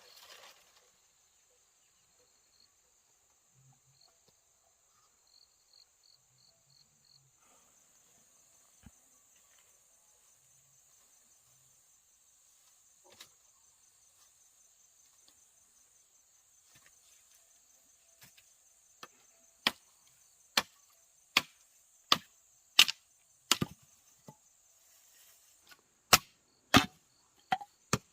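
Wood being chopped with a blade: sharp, evenly spaced strokes start about two-thirds of the way in, roughly one every three-quarters of a second, with a short pause near the end. Insects keep up a steady high drone throughout, and it grows louder about a quarter of the way in.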